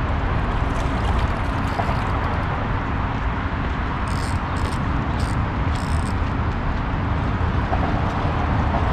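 Steady low rumble of road traffic, with four short high chirps between about four and six seconds in.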